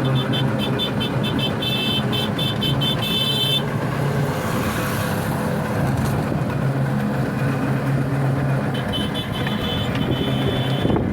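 A motor vehicle running steadily amid road noise, with runs of quick, high-pitched beeps repeated several times a second for a few seconds at the start and again near the end.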